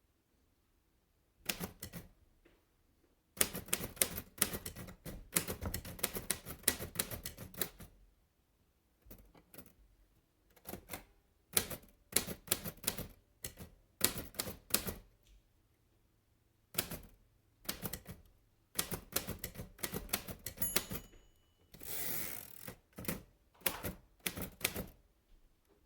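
Royal De Luxe Model "A" portable typewriter being typed on: bursts of rapid key strikes separated by short pauses. A little past the middle of the last third comes one longer scraping sound among the strikes.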